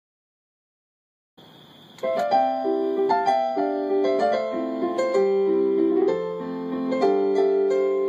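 Silence for about a second and a half, then a faint hiss, and solo piano starts about two seconds in, playing held chords under a melody line.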